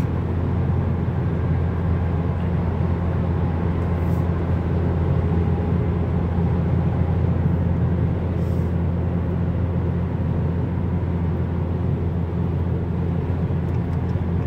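Cabin sound of a 2015 Chrysler 200S's 3.6 L Pentastar V6 with a muffler delete, cruising steadily at highway speed around 2,000 rpm: a steady low exhaust hum with road and wind noise, mellow and without drone.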